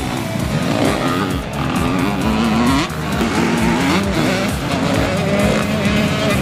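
Motocross bike engines revving up and down and easing off, with background music with a steady beat.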